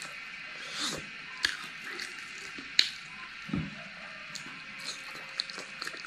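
Close-up chewing of crispy deep-fried cicadas: wet mouth and lip smacks with scattered sharp crunches and crackles, over a steady hiss.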